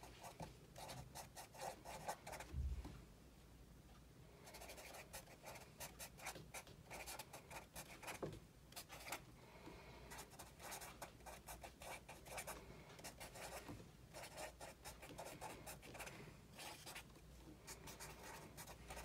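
Felt-tip marker scratching across paper in quick runs of short strokes as words are written by hand, with brief pauses between words. A single low thump about three seconds in.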